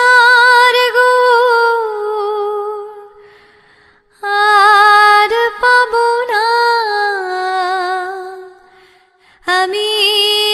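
A woman singing a Baul song in long, held, wavering notes, in three drawn-out phrases that each fade away with short pauses between them.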